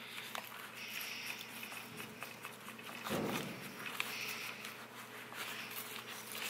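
A cloth rag rubbing and wiping over the metal saw head of a pole saw attachment in several short scrubbing strokes, with a dull bump about three seconds in.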